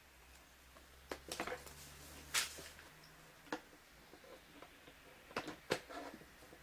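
A handful of sharp, scattered clicks and light knocks as the digital lock's front body and its cable connector are handled and fitted against the door, over a faint low hum in the first few seconds.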